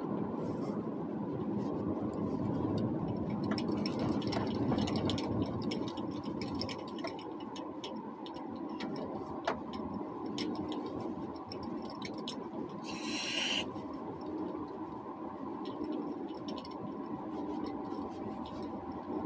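Steady in-cabin drone of a car driving on a snow-covered road, with scattered light clicks and a brief hiss about thirteen seconds in.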